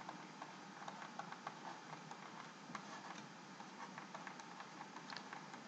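Faint, irregular small ticks and taps of a pen stylus writing on a digital writing surface, over a steady low hiss.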